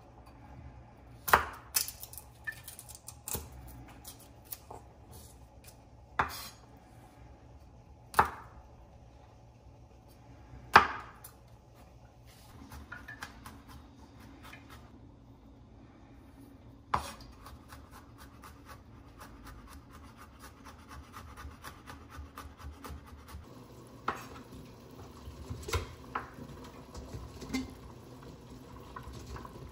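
Scattered sharp knocks and clatters, about a dozen at irregular intervals, over a faint steady background. A low steady hum comes in about twelve seconds in.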